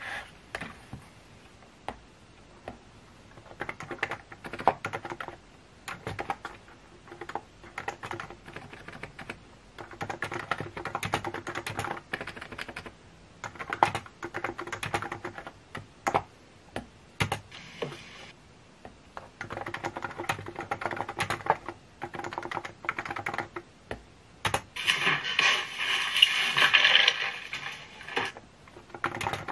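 Computer keyboard being typed on in bursts of quick key clicks with short pauses, with a denser, louder run of typing near the end.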